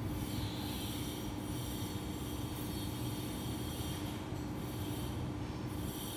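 Steady background rumble and hiss with a constant low hum.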